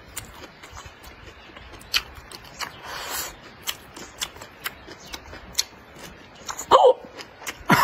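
Close-up eating sounds: chewing and slurping of stir-fried greens, with a scatter of sharp clicks from chopsticks and mouth. There is a short slurp about three seconds in and a louder mouth sound that bends in pitch near the end.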